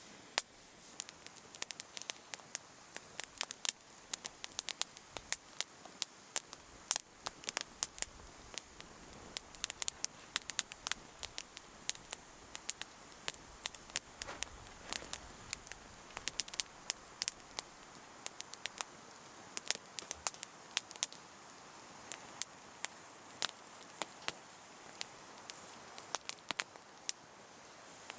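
Wood campfire crackling, with many irregular sharp pops over a soft steady hiss of burning.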